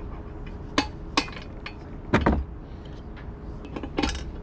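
A hand tool clinking and knocking against the metal steering nozzle of an Ultra-Jet 340HT waterjet, worked in at the nozzle's pivot. There are several sharp metallic clinks: the loudest comes about two seconds in, with a little ringing, and a quick run of clinks follows near the end.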